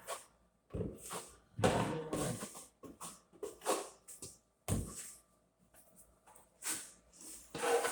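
Trowel scraping and spreading mastic tile adhesive on a wall in several short, irregular strokes.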